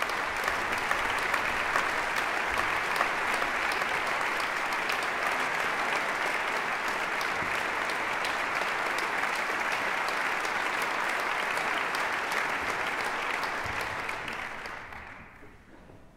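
Concert-hall audience applauding steadily, the clapping dying away about fourteen seconds in.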